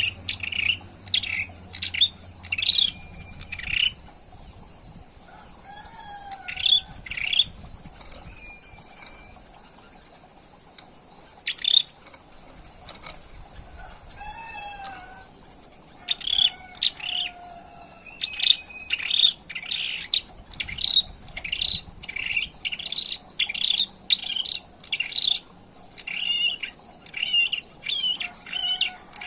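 Ashy tailorbird (prenjak kepala merah) singing: sharp, repeated chirping notes in bursts, sparse in the middle, then a fast run of notes at about two a second in the last third. A young male, about three weeks old, still learning its song.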